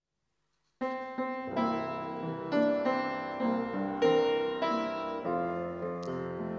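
Piano playing a hymn introduction in sustained chords, beginning about a second in after a moment of silence.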